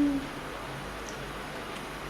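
A hummed 'mmm' of someone tasting food ends a fraction of a second in, followed by the steady hiss of an electric fan running in the room.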